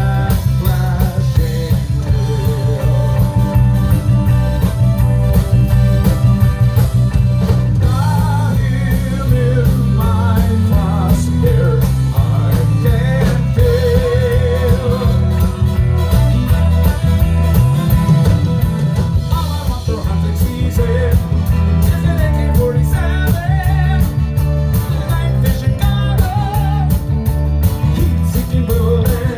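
Live reggae band playing: drums, bass, guitars, keyboard and congas keeping a steady groove, with a wavering melody line over the top that is sung or played on lead guitar.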